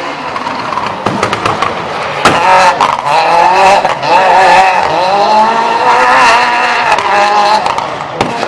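Citroën Saxo S1600 rally car's four-cylinder engine revving hard, its pitch rising and falling several times, with sharp exhaust pops and bangs cracking all through.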